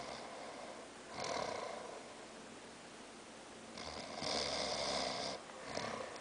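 A sleeping man snoring: one snore about a second in, a longer one around four seconds in, and a short one just before the end.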